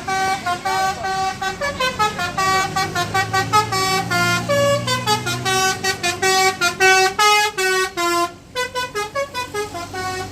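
Tour bus's multi-tone 'telolet basuri' musical horn playing a fast tune of short, clipped notes, with a low engine rumble under it for a few seconds in the middle.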